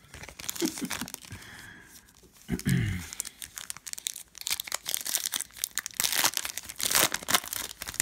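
Foil wrapper of a trading-card pack being torn open and crinkled, a dense run of crackles and tearing, loudest near the end.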